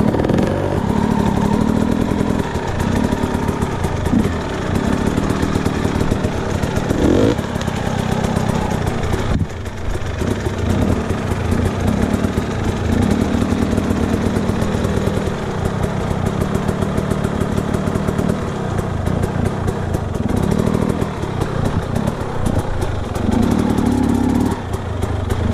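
Enduro dirt bike engines running at low speed over rough ground, the revs rising and falling with the throttle.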